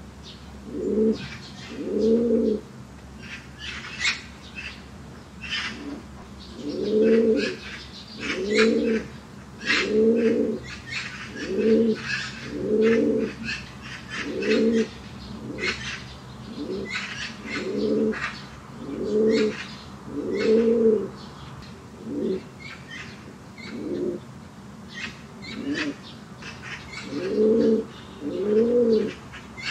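Domestic fancy pigeons cooing over and over, one low coo every second or two, each rising and falling in pitch. Short high chirps and clicks are scattered in between.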